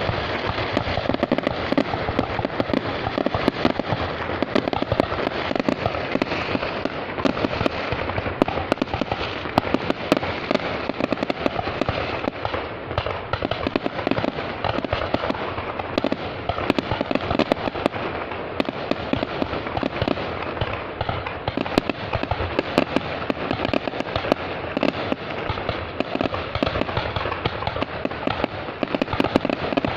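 Fireworks going off without a break: a dense, continuous crackle of many small bangs and pops.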